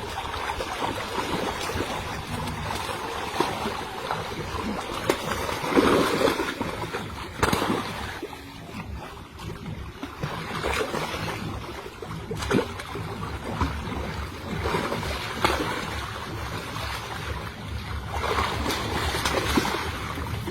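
A boat's engine runs with a steady low rumble while water splashes and sloshes around the hull. There are a few sharp knocks, and a louder splash about six seconds in.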